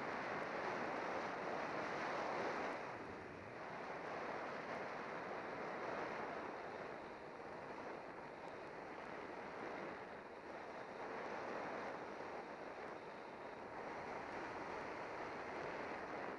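Wind rushing over the microphone of a camera on a road bicycle speeding downhill, a steady roar that swells and eases, loudest in the first few seconds.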